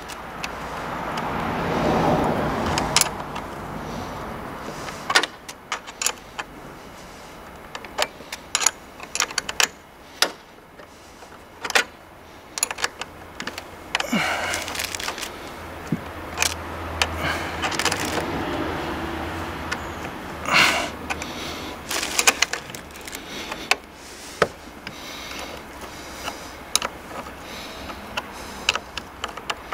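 Irregular metal clicks and clinks of a spanner on a car battery's terminal clamp nuts as the terminals are tightened, with stretches of handling rustle.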